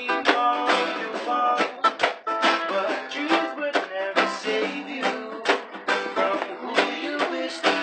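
Two acoustic guitars and a ukulele strummed together, a steady run of chords with quick, even strokes.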